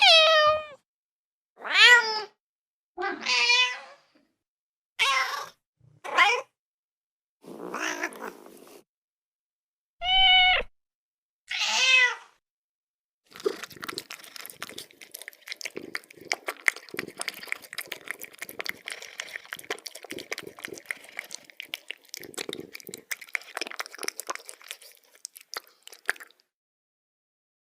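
A domestic cat meows about eight times, each call short and some falling in pitch. It then eats for about thirteen seconds: a quick, steady run of crunching and chewing clicks.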